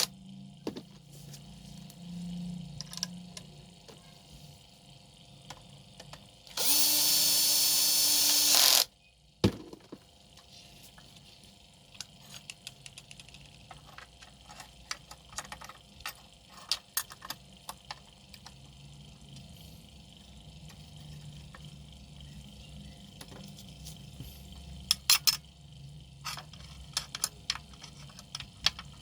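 A power tool's motor runs at a steady high speed for about two seconds, starting about seven seconds in and stopping abruptly. Small metallic clicks and knocks of tool handling are scattered through the rest.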